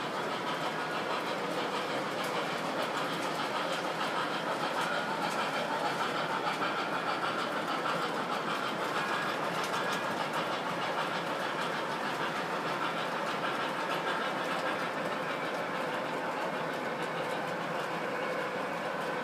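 MTH model trains running on the layout's track: a steady rolling and motor whir with rapid clicking of wheels over the rails.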